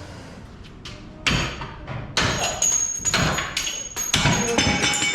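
Repeated metal clanks and bangs with a lingering ring, starting about a second in, as the rear axle assembly of a 1971 Ford Bronco is worked loose and lowered out from under the truck.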